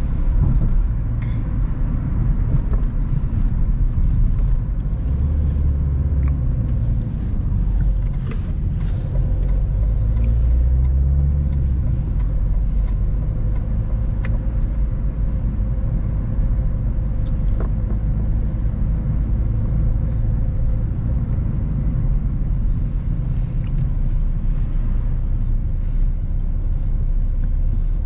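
A car driving: a steady low rumble of engine and road noise, with the engine note shifting up and down a few times.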